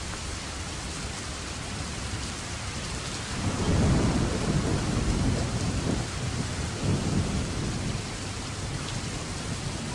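Steady rain hiss with low rolls of thunder, the loudest swelling about three and a half seconds in and a shorter one around seven seconds.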